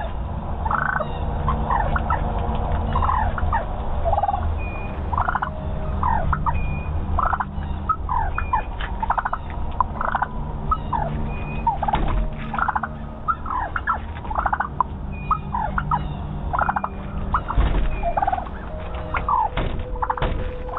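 A turkey gobbling over and over, heard through a doorbell camera's microphone, with a steady low rumble underneath.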